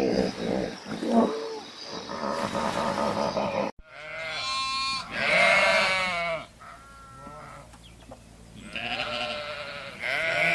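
Bleating livestock: after an abrupt cut about four seconds in, a run of long, wavering bleats, with a pause before the last one. Before the cut there are lower animal calls.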